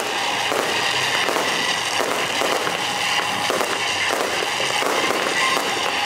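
Fireworks going off without a break: dense crackling and popping of many small reports close together, as rockets launch and burst overhead.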